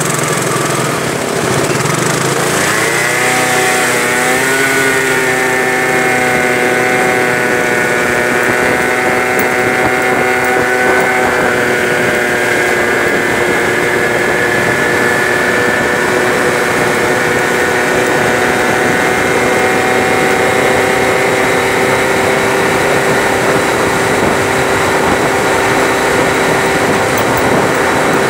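50cc Peugeot Jet C-Tech scooter engine idling at a stop, then pulling away about two seconds in with a rising, wavering pitch. It settles into a steady drone as the scooter cruises.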